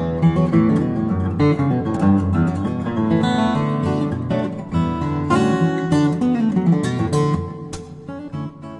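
Background music led by acoustic guitar, plucked and strummed, growing somewhat quieter near the end.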